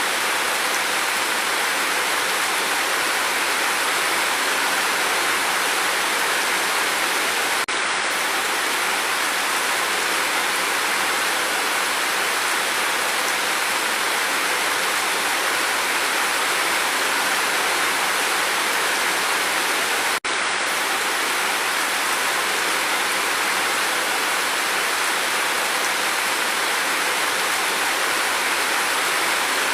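Steady, even rainfall with no thunder. The sound dips for an instant twice.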